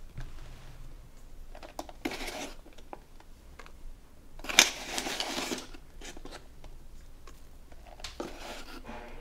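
A measuring spoon scooping cornstarch out of a cardboard box and tipping it into a stainless steel bowl: three short scraping, rustling bursts, the loudest about halfway through with a sharp click, and small clicks between them.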